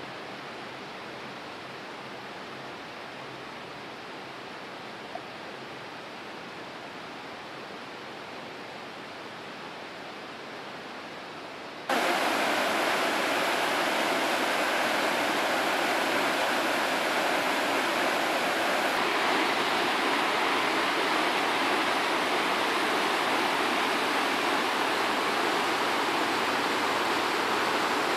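A faint steady rush, then about twelve seconds in a much louder, fuller rush cuts in abruptly: a whitewater mountain stream tumbling over rocks, which holds steady from there on.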